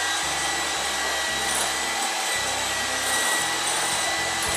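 Electric hand mixer running steadily, its beaters whisking egg whites in a bowl that are almost beaten to stiff peaks.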